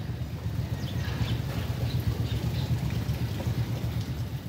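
Outdoor ambience: a steady low rumble with a light hiss, and a few faint short high chirps in the middle.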